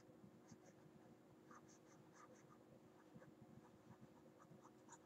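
Faint scratching and tapping of a stylus writing on a tablet, a string of short light strokes, over a faint steady hum.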